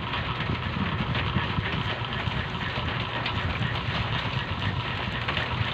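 A motor running steadily in the background: a low hum under an even wash of noise.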